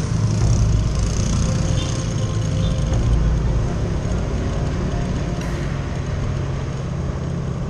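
Motorcycle running at a steady riding speed, with engine and wind noise heard from the rider's position on the bike.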